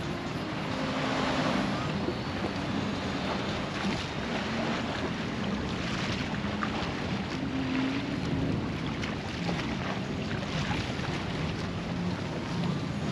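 Small sea waves lapping and splashing against shoreline rocks, with wind across the open water and a faint low hum underneath.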